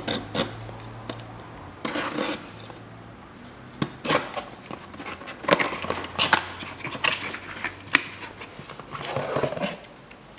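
Cardboard parts box being handled and opened by hand: a string of sharp clicks, scrapes and rustles as the flaps are pulled open and the can inside is taken out.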